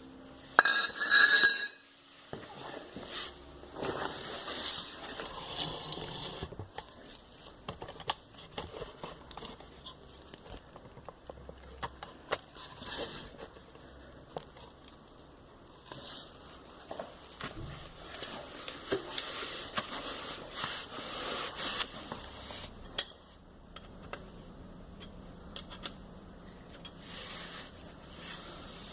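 Metal hand tools clinking and knocking against metal in irregular bursts, with rasping and scraping at intervals.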